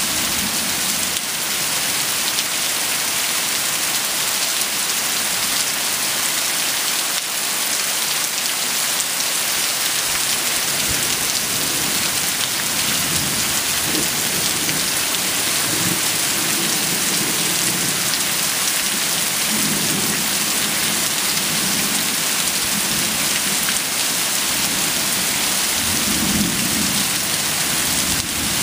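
Heavy, steady rain, with runoff splashing on concrete. Thunder rumbles in low swells from about halfway through, loudest near the end.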